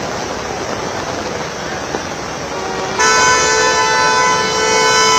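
A steady wash of rain and wet-road traffic noise, then about three seconds in a vehicle horn sounds and is held on steadily to the end.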